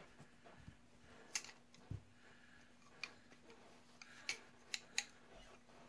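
Light clicks and taps from hand tools being handled, about half a dozen spread apart, with one duller knock about two seconds in.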